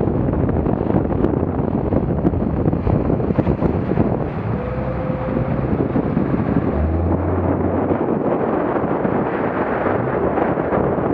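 Wind buffeting the microphone on a small motorboat running at about seven knots through choppy water, with the rush of spray and the hull slapping the waves. A short low hum comes in about seven seconds in.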